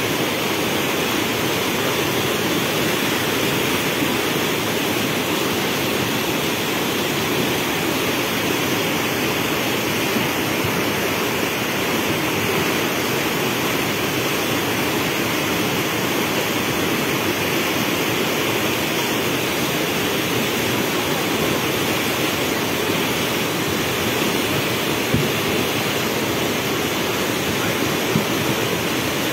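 Swollen, muddy floodwater rushing and churning under a footbridge, a steady, unbroken torrent.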